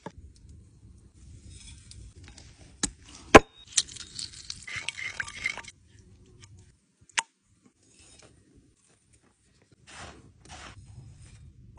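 Food being prepared by hand: a knife cutting through fish onto a wooden cutting board with a few sharp knocks, a stretch of clinking and handling, then short scraping strokes of a spoon stirring thick batter in a wooden bowl.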